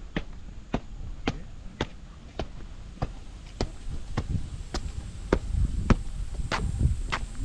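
Footsteps walking down concrete steps and on along a paved path, a sharp click at each step about twice a second, with heavier footfall thuds in the second half.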